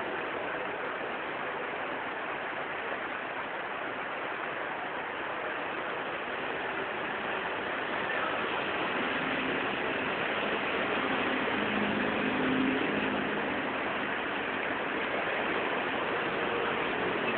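Steady hiss of rain on a wet road, with passing vehicles' tyres swishing through the water. An engine hum swells in the middle of the stretch, loudest about twelve seconds in.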